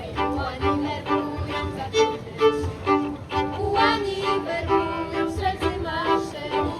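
Background music with string instruments playing short repeated notes over a steady low beat.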